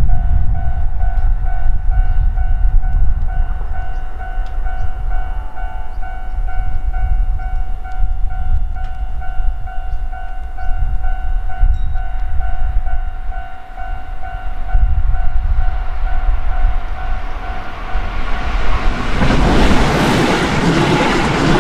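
Railway level-crossing warning bell ringing in a quick, even pulse over a low rumble. About nineteen seconds in, a Keihan 3000-series limited express passes close by, and its running noise swells into a loud rush that drowns the bell.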